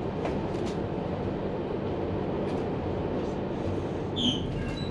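Steady low rumble inside a passenger train carriage as the train pulls into a station, with a short high squeak about four seconds in.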